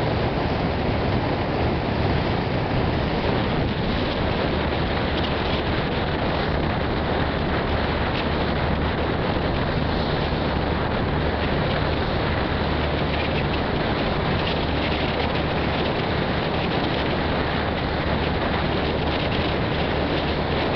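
Passenger ferry under way: a steady low engine drone beneath a constant rush of wind and water.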